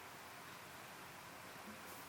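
Faint steady hiss of room tone, with one faint click near the end.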